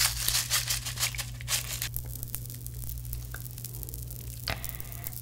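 Popping candy sprinkled from its paper packet onto green melon jelly, crackling densely for about a second and a half and then popping in sparse faint ticks. One louder short crackle comes near the end.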